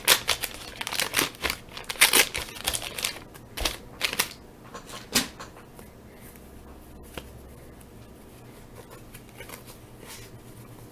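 A wax-paper baseball card pack being torn open and its cards handled and flipped through: a run of sharp crackly rustles and snaps for about the first five seconds, then only faint handling sounds.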